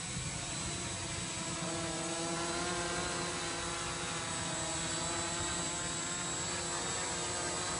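S500 quadcopter's electric motors and propellers whirring steadily in flight, a hum of several tones that drift slowly up and down in pitch as the motors change speed.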